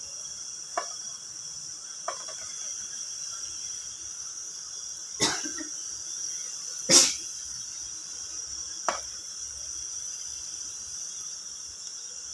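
Steady high-pitched chirring of crickets, with five short sharp sounds as squares of bread are set into an aluminium frying pan of oil. The loudest come about five and seven seconds in.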